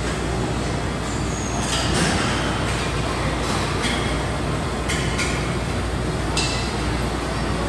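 Steady gym background noise, with a handful of sharp metal clinks and knocks from exercise machines scattered through it.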